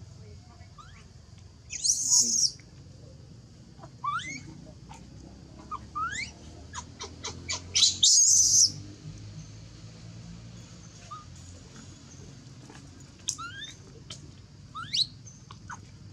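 Baby macaque crying: a string of short, rising squeaks broken by two loud, harsh screams about two seconds and eight seconds in. These are the distress cries of an infant whose mother has refused it milk.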